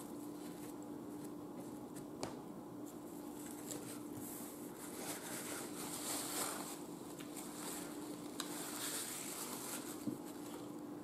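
Paper napkin rustling in the hands, in two soft spells in the middle and later part, over a steady low hum, with a few faint clicks.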